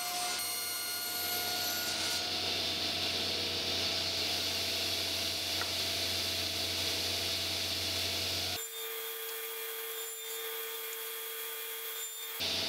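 Table saw running with its blade spinning as a block of wood is fed across it along a miter-gauge fence. A steady machine hum with sawing noise; the low hum drops out abruptly for about four seconds near the end, then comes back.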